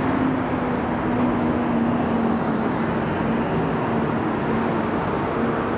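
City street traffic noise: a steady rumble of road vehicles, with a constant low hum running underneath.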